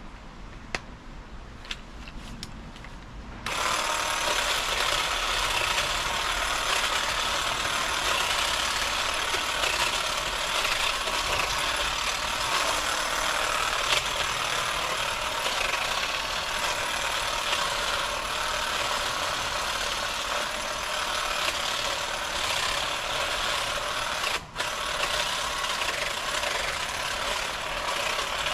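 Pole hedge trimmer's reciprocating blades running steadily and cutting into shrub growth, starting a few seconds in. It cuts out for an instant near the end.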